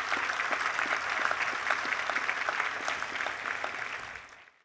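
Large crowd applauding, a dense steady patter of clapping that fades and then cuts off abruptly near the end.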